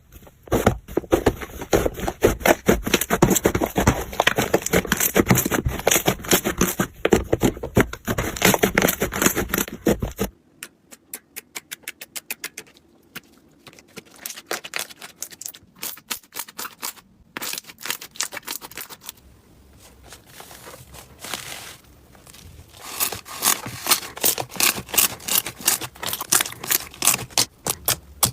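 Slime being squeezed and pressed by hand: a dense run of crackling and clicking pops. About ten seconds in it cuts to a quieter string of rapid clicks and pops, which grows thick and loud again near the end.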